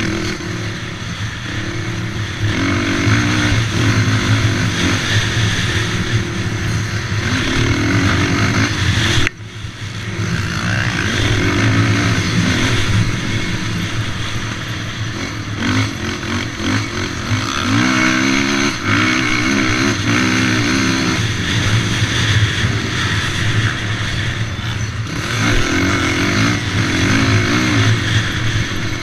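Race quad engine running hard around a sand motocross track, its pitch rising and falling with throttle and gear changes. The throttle snaps shut for a moment about nine seconds in, then the engine picks back up.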